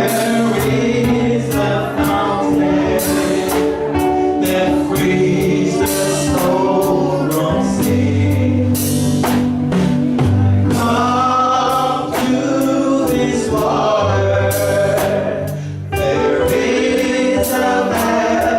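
Gospel music: a choir singing over a band with bass and drums.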